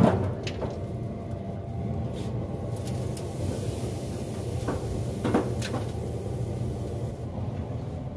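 A wood chunk knocks down sharply onto the steel grate of a Weber SmokeFire pellet smoker. A few softer knocks and clicks follow about halfway through as a brisket is laid on the grate beside it, over a steady low hum.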